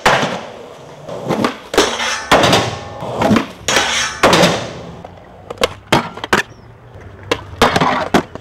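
Skateboarding in quick cuts: wheels rolling on concrete, the board's tail popping, trucks grinding along a metal handrail and skatepark coping, and a series of sharp clacks as the board lands.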